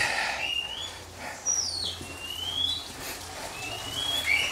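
Birds calling: about five short whistled notes, each sliding up or down in pitch.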